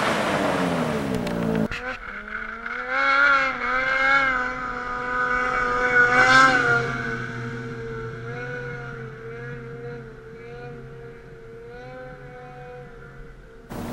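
Snowmobile engine running hard as the sled skips across water. Its pitch drops as it passes. After a cut it rises and falls with the throttle, then fades steadily as the sled heads away.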